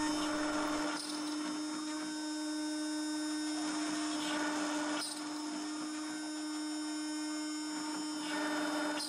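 CNC spindle running with a steady high whine while the tool mills soft 2 mm aluminium sheet in trochoidal passes. The cutting noise shifts a few times, about a second in, halfway through and near the end.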